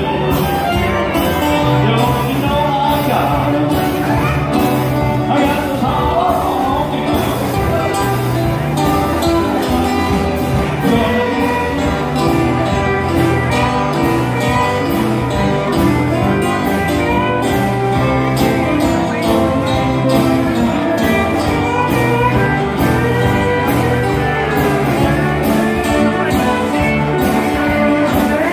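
Live country band playing a honky-tonk blues number: acoustic guitar, upright bass and keyboard over a steady beat.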